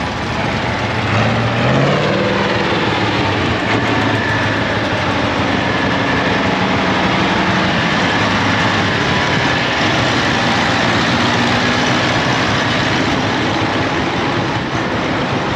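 Tractor engine of a large red Massey Ferguson running as the tractor drives slowly past at close range. The engine note rises briefly a second or two in, then runs steady.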